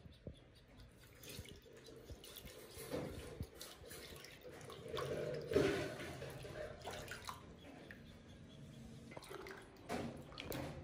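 Water splashing and dripping in irregular bursts, loudest about five to six seconds in.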